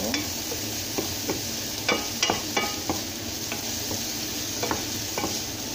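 Sliced onions sizzling in hot oil in a frying pan while a wooden spatula stirs them, with repeated short scrapes and taps of the spatula against the pan.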